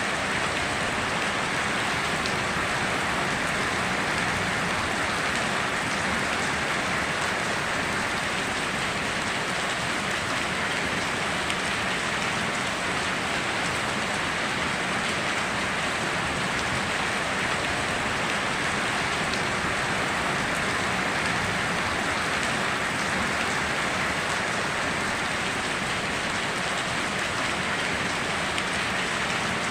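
Steady heavy rain falling, an even unbroken hiss of raindrops with no thunder.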